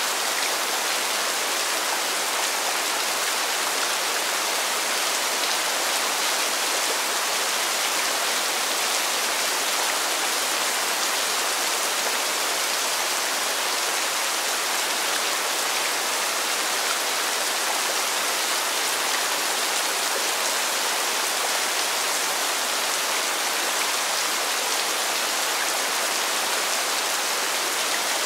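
Rain falling steadily, an even hiss with no single drops or thunder standing out.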